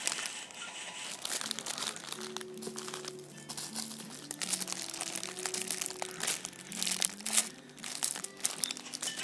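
Clear plastic packaging bags crinkling in the hands as bagged squishy toys are handled and turned, in quick irregular crackles. Soft background music with a slow melody of held notes plays underneath.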